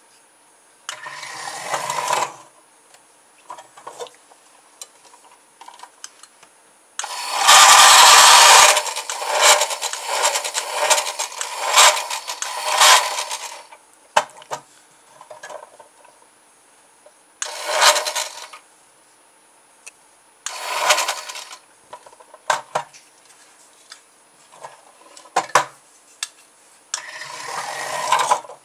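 Small electric motor, run from three AAA batteries through a worm gear, whirring in short bursts each time the push button is pressed. The plastic doorbell-body car clatters and knocks on its VHS-spool wheels against the wooden surface. The longest, loudest burst comes about seven seconds in, with shorter ones after it and clicks of handling in between.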